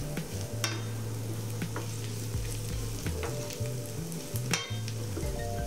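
Sliced onions sizzling steadily in olive oil in a frying pan over medium heat, with scattered small crackles, as they caramelize to golden brown.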